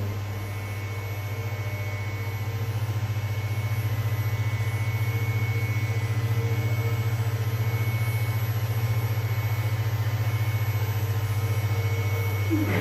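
Milling machine running steadily under test: an even low electric hum with a faint high whine that fades in and out.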